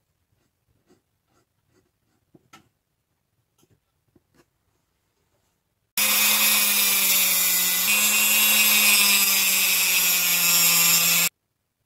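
Rotary tool with a thin cut-off disc cutting through a metal strip held in a vise: a loud, steady high whine with hiss, starting about halfway in and stopping abruptly near the end.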